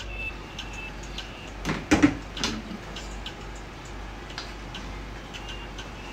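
A run of light, fairly regular ticks, with a louder clatter of kitchenware about two seconds in, over a steady low hum.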